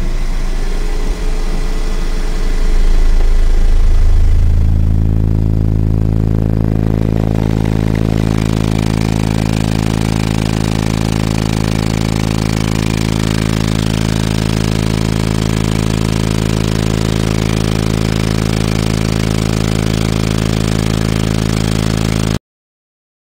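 Four Ascendant Audio SMD 18-inch subwoofers playing a 25 Hz tone at about 500 watts RMS each. It is a loud, steady, heavily overtoned drone that builds over the first few seconds, holds, and cuts off suddenly near the end.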